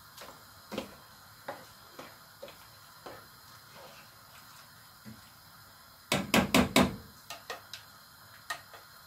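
Scattered light knocks and clatter of a colander against a cooking pot as a green pepper mix is scooped by hand into the pot, with a quick run of about five loud knocks a little after halfway.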